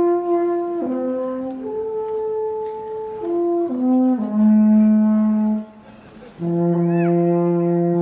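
Alphorn playing a slow phrase of held notes that step down in pitch. After a short break it sounds one long, low held note.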